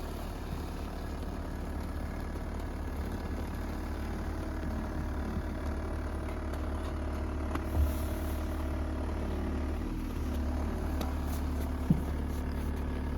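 A motor vehicle's engine runs steadily close by, a low even rumble with a hum. There is a single thump about eight seconds in and a sharp click near the end.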